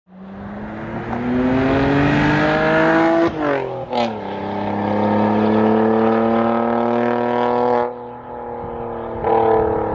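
Saab 9-3's engine accelerating hard: its pitch climbs for about three seconds, drops at an upshift with a brief sharp noise, then climbs again more slowly in the next gear. It eases off about eight seconds in and picks up again near the end.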